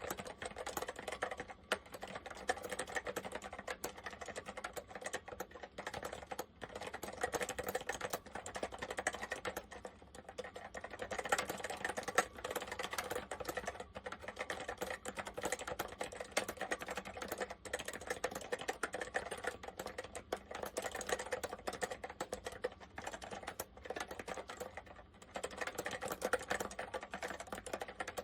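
Continuous fast typing on an Apple M0110A Macintosh Plus keyboard with Mitsumi Standard mechanical switches: a dense stream of key clicks, with a few brief pauses.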